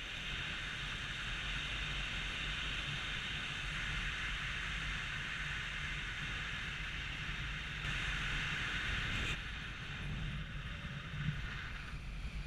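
Wind rushing over the microphone in paraglider flight: a steady hiss with a low buffeting rumble underneath, the hiss easing a little about nine seconds in.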